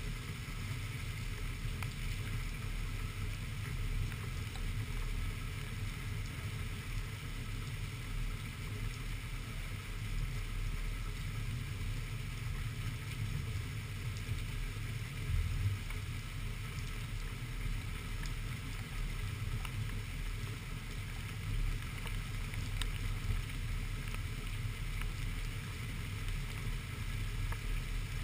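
Heavy rain and wind in a storm: a steady low rumble with a lighter hiss, and faint ticks of drops striking the camera.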